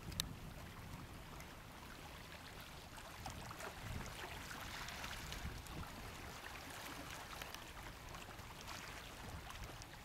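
Small Black Sea waves lapping and splashing gently against a rocky shore, a faint steady wash with little trickles and splashes. A low wind rumble sits underneath, and a single sharp click comes just after the start.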